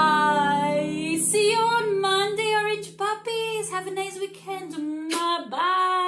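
A woman singing a children's goodbye song, her voice sliding up and down in pitch, over a last acoustic guitar chord that rings on and dies away about three seconds in.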